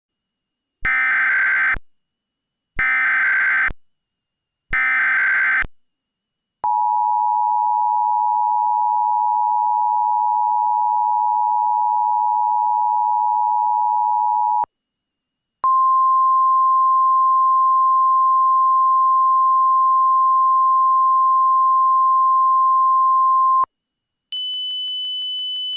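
Emergency Alert System tones: three short bursts of screeching SAME header data, then the two-tone EAS attention signal held for about eight seconds, then a single steady tone for about eight seconds, the NOAA Weather Radio warning alarm. Near the end a higher-pitched electronic tone starts.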